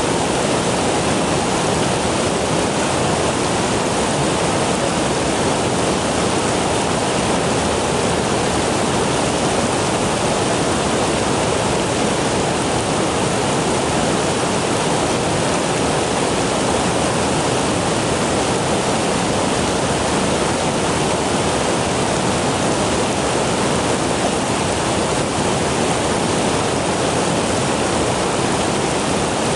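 Rushing river water: a steady, unbroken rush of flowing water.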